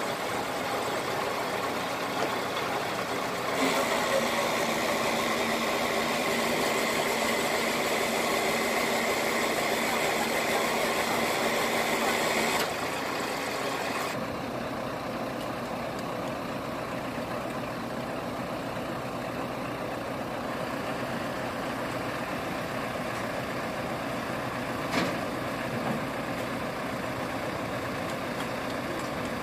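Engine of a crane truck running steadily to work its truck-mounted crane. From about four seconds in to about thirteen seconds it runs louder with a higher whine, then settles to a quieter steady running. There is one sharp click near the end.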